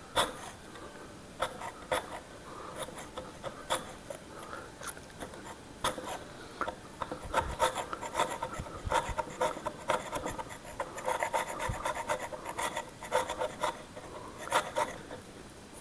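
Flat steel end of a 25 cm Mokuba claw bar pushed along old painted wood, scraping off paint in many short, irregular strokes. The paint comes off only with difficulty.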